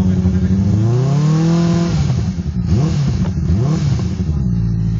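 Benelli 600i's 600 cc inline-four engine on its stock exhaust, idling, then revved up and held for about a second, blipped twice quickly, and dropping back to a steady idle near the end.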